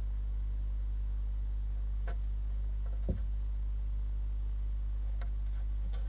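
Steady low electrical hum on a nest-box webcam's audio, with a few faint clicks and one soft knock about three seconds in.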